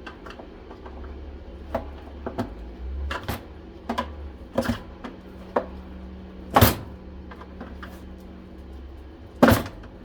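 Irregular knocks and clicks from handling and taking apart a central vacuum unit, with two louder knocks, one about two-thirds in and one near the end, over a steady low hum.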